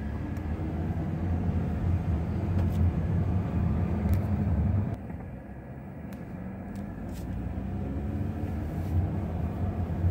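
Car engine and road noise heard from inside the cabin while driving slowly; the rumble drops off about five seconds in, then builds again.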